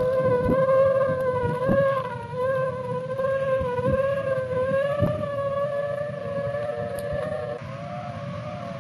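Taut kite line singing in the wind: a steady humming tone with overtones that wavers slowly in pitch, over gusty wind rumble on the microphone. Near the end the tone steps slightly lower and the wind rumble eases.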